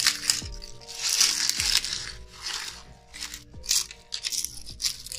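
Dry avocado leaves crunching and crackling in repeated bursts as hands strip them from their stems and crumple them, with background music underneath.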